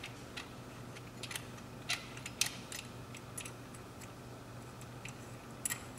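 Faint, irregular metallic clicks from a T-handle installation tool being turned by hand, driving a thread-repair insert down into a head bolt hole in a Toyota 2AZ-FE aluminium engine block. A steady low hum lies underneath.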